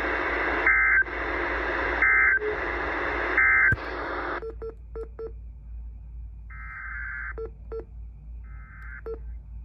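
Radio static broken by three short, shrill two-tone digital data bursts about a second apart, the Emergency Alert System end-of-message code sent after an alert. The static cuts off about four seconds in, leaving a few faint clicks and short beeps.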